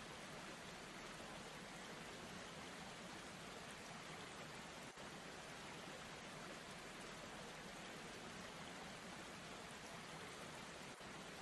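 Faint, steady rush of falling water from a waterfall, an even hiss with no pitch.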